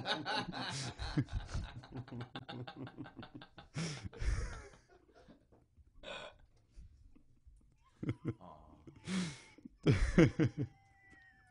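Men laughing hard. It opens with a quick run of short, breathy laugh pulses, then gives way to separate gasps and bursts of laughter with short pauses between them.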